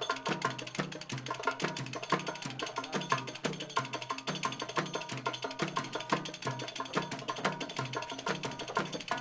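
Background music with a steady percussion beat, a hand-drum rhythm about two to three strokes a second under a melody.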